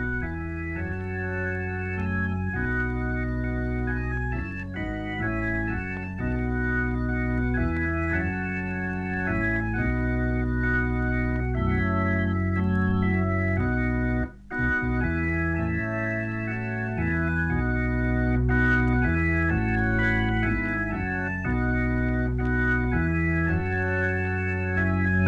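Instrumental organ music played from a vinyl LP: sustained organ chords that change every second or so, broken off for a moment about fourteen seconds in.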